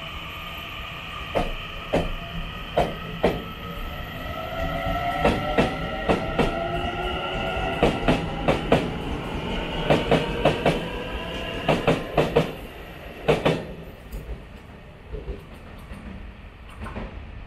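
Taiwan Railways EMU900 electric multiple unit pulling out of a station. Its motors give a whine of several tones that climbs in pitch as it speeds up, and its wheels clack over the rail joints, often in pairs. The sound drops away in the last few seconds as the train leaves.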